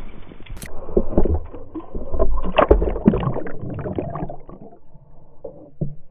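Stream water sloshing and splashing with irregular knocks as hands move a brook trout in the shallow water to release it. It is busiest in the first four seconds and thins out near the end.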